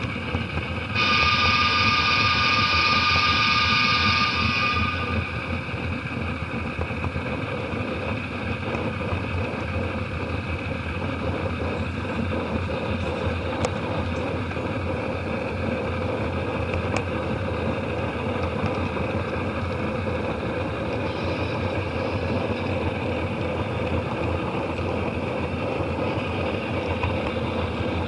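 Model train running on its track, heard from a car just behind the locomotive, with a steady rolling rumble. The locomotive's horn sounds once for about four seconds near the start, and a couple of faint ticks come later.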